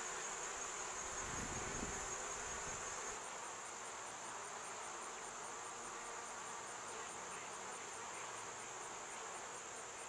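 Honeybees buzzing softly as they fly in and out of a hive entrance, with one bee passing close by about a second and a half in. Over it runs a steady high insect trill, which after about three seconds gives way to a fast, even pulsing chirp of about four to five a second.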